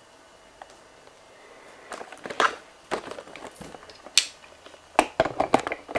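Handling noise from a handheld camera filming at close range: scattered rustles, clicks and knocks, starting about two seconds in and crowding together near the end.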